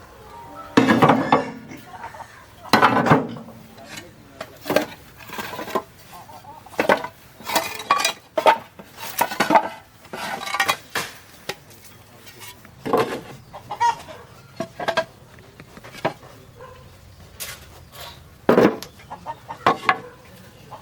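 Chickens clucking amid irregular clatter of pots, dishes and utensils, with a few loud knocks.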